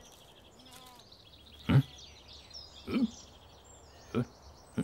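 Birds chirping in the background, broken by a few short sharp sounds about a second apart, the first the loudest.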